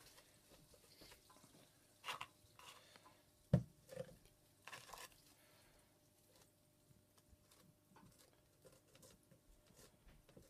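Quiet handling noises of someone working on a small resin model at a bench: a few light taps and rustles, with one sharper knock about three and a half seconds in.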